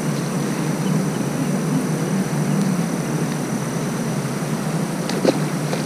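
Steady outdoor background noise, a low rumbling hiss with a faint steady high tone, and one short click about five seconds in.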